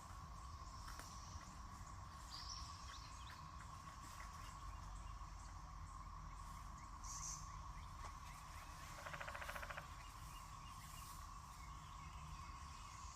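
Faint outdoor ambience: a steady high thin hum, a couple of short high bird chirps, and a brief buzzy trill about nine seconds in.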